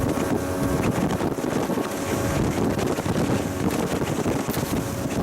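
Wind buffeting the microphone on a motorboat under way, with the engine running beneath it.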